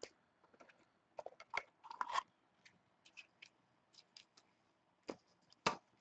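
Faint crinkling, rustling and small clicks of clear plastic card sleeves and trading cards being handled, in short scattered bursts.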